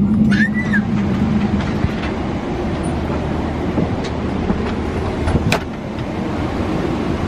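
Steady cabin noise inside a Boeing 777-300ER parked at the gate after arrival. A brief high chirp sounds about half a second in, and a sharp click comes about five seconds in.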